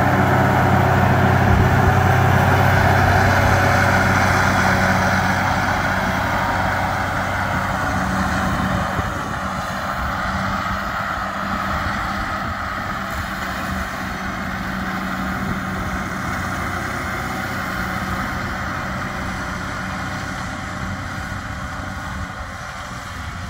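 Tractor engine running steadily while working a side-mounted grass mower through a hayfield, a low drone that fades gradually as the tractor moves away.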